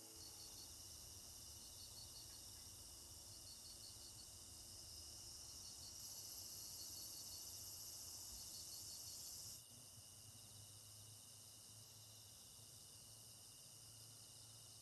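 Insects singing, crickets among them: a steady high-pitched trilling with short runs of quick chirps repeating about once a second.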